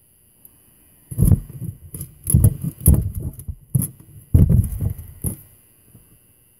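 Small metal lock parts clicking, rattling and knocking against the bench as a deadbolt cylinder is handled and pinned during a rekey, in several quick clusters over about four seconds.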